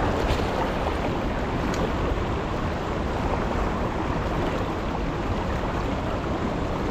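Fast river current rushing below a dam outflow: a steady rushing of water.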